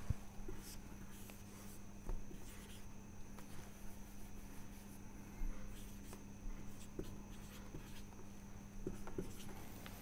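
Marker writing on a whiteboard: faint, short scraping strokes and light taps of the felt tip as digits are written out.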